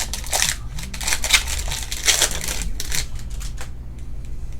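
Glossy trading cards being flipped and slid against one another in the hand: a quick run of crisp flicks and rustles that thins out near the end.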